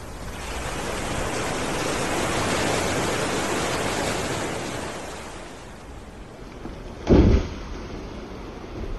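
Rushing wind-and-sea noise at sea swells over a few seconds, then fades. A sudden heavy, low thump comes about seven seconds in and is the loudest sound.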